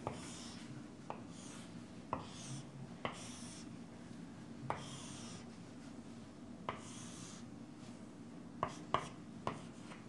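Chalk on a chalkboard drawing long straight lines, faint. Each stroke starts with a sharp tap as the chalk meets the board, then a short scratchy scrape along the line, about half a dozen strokes. Near the end come several quick taps as a small mark is written.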